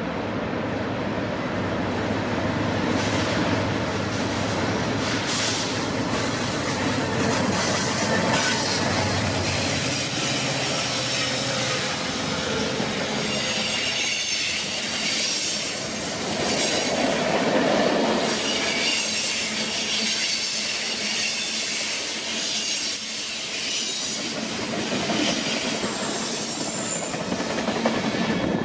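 BNSF freight train passing close by. First the diesel locomotives go past with their engines running, then the freight cars roll by with high wheel squeal and repeated clacking of wheels over the rail joints.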